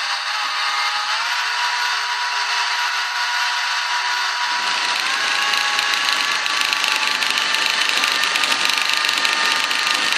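Sound decoder of an H0 model of the mkb V 19 diesel locomotive, playing its engine sound. The engine note steps up in pitch about a second in and again about four and a half seconds in, where a rougher running noise joins, and then holds steady.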